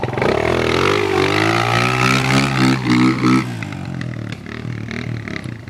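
Kawasaki KLX dirt bike's engine revving hard in a high gear as it spins its way through deep mud. The pitch climbs over the first second, holds for a couple of seconds, then fades away about three and a half seconds in.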